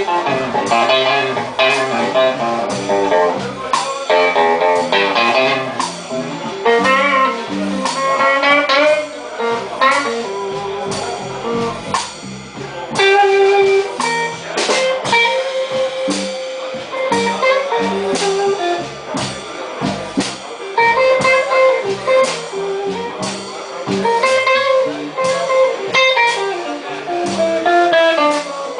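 Live electric blues band in an instrumental guitar solo: the electric guitar plays quick runs of single notes and sliding, bent notes over bass and drums.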